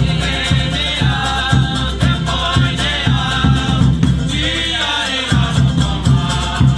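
Live Cook Islands drum-dance music: fast, steady drumming on a wooden drum struck with a stick and a large bass drum, with strummed ukulele and guitar and voices singing. The low drum beat drops out for about a second, roughly four and a half seconds in, then comes back.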